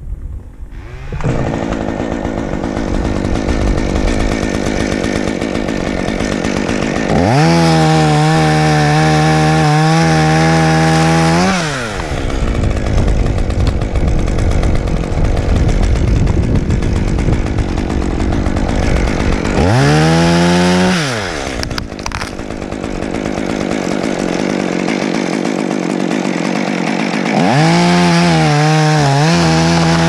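Top-handle chainsaw idling, throttled up three times for cuts in branches: a run of about four seconds, a brief burst about twenty seconds in, and a third near the end, each rising to a steady high engine pitch and dropping back.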